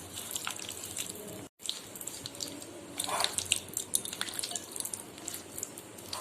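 Hands mixing boiled boneless chicken pieces into a thick yogurt-and-spice marinade in a bowl: irregular wet squelches and small clicks.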